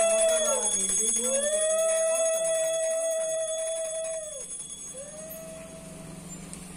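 Conch shell (shankha) blown in long steady notes, each bending down in pitch as the breath runs out and rising again at the next breath. One note ends about half a second in, a second is held for about three seconds, and a shorter, fainter third begins about five seconds in. Blowing the conch marks the start of the puja worship.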